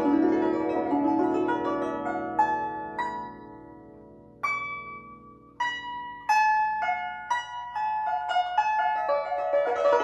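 A 21-string guzheng played solo: a full, ringing run of plucked notes thins and dies away to a near-pause about four seconds in, then single plucked notes ring out one by one about every half second, building to a fuller run near the end.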